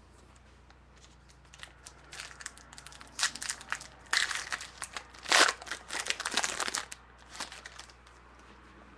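Foil trading-card pack wrapper being torn open and crinkled in the hands, an irregular crackling that is loudest in the middle of the stretch.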